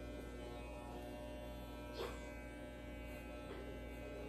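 Electric hair clippers buzzing steadily as they run over a man's head during a short military-style haircut, with a single short click about two seconds in.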